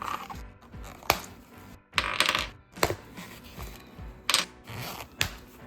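Sharp hard-plastic clicks and snaps from a small Transformers Studio Series Frenzy figure as its parts are moved and clicked into place while it is being transformed. A longer rustling scrape comes about two seconds in.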